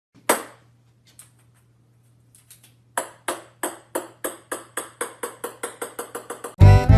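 Ping pong ball clicking on a hard surface. There is one sharp hit, then a few faint taps, then a run of bounces starting about three seconds in that come faster and faster as the ball settles, over a faint low hum. Music starts just before the end.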